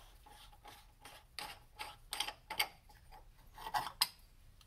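Oil catch can being twisted open by hand: a run of irregular scrapes and clicks from the canister's threads and fittings, loudest in two clusters, around the middle and near the end.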